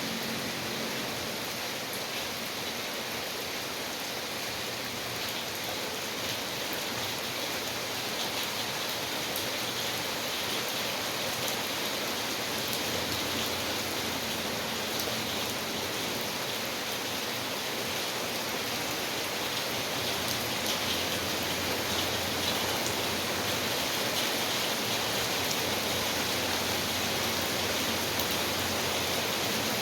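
Steady rain falling, with a dense patter of individual drops on surfaces.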